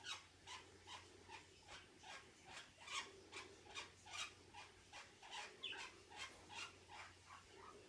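Budgerigar making a short, repeated noise about two and a half times a second, evenly spaced.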